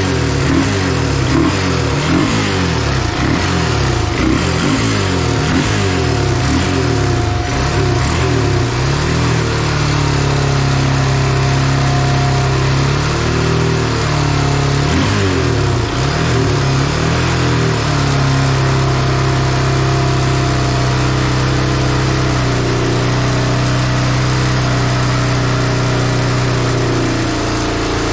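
Honda TRX300EX quad's single-cylinder four-stroke engine under way: for the first several seconds the revs climb and drop again and again as it accelerates through the gears, then it holds a mostly steady pitch with a couple of brief dips around the middle.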